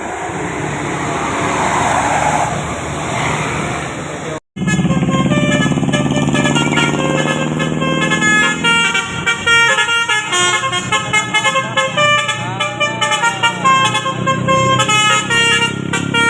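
Street noise, which breaks off abruptly about four seconds in. Then a bus's basuri 'telolet' horn plays a fast melody of short notes that step up and down in pitch, and keeps going to the end.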